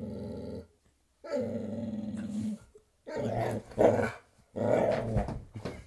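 Pet dog growling in a series of long growls with short pauses between them, the later ones louder and more broken up, with the loudest outburst a little before four seconds in. A growl of displeasure, the dog objecting to orange peel.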